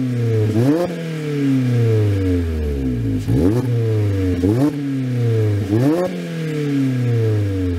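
A Mazda MX-5 Miata (ND) four-cylinder engine breathing through a Greddy Supreme SP stainless axle-back exhaust, free-revved at a standstill. The revs jump quickly four times and fall slowly back after each blip.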